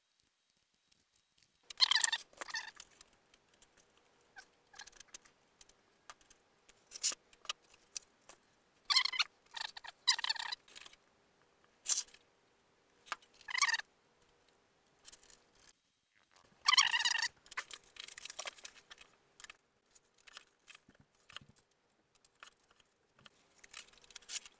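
Workbench handling noises: a series of short squeaky bursts, about five, as glue is squeezed from a plastic bottle and worked by hand, with light clicks between them and a faint steady hum under it all.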